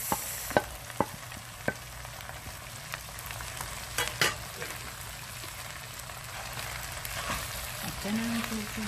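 Pancit noodles and stir-fried vegetables sizzling in a pan as they are tossed and mixed with a wooden spatula. The spatula knocks sharply against the pan several times in the first few seconds.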